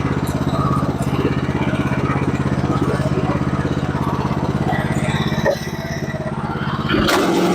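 Sawmill's engine running steadily under load with a fast pulse while the first slab is cut off a log. It drops in level about five and a half seconds in, and a sudden, noisier sound with a different steady tone starts near the end.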